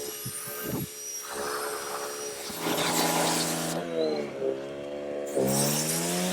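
Powerhorse portable generator engine running, its pitch dipping and climbing again as its load changes, under the hiss of pressure-washer spray that stops for about a second and a half in the middle.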